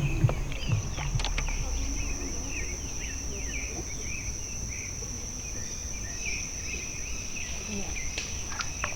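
A steady high insect drone with small birds chirping and twittering many times over it, above a low rumble.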